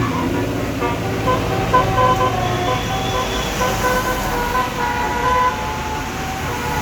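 A bus's Basuri telolet multi-tone air horn playing a melody: a run of short held notes stepping up and down in pitch, over traffic noise. The tune dies away after about five and a half seconds.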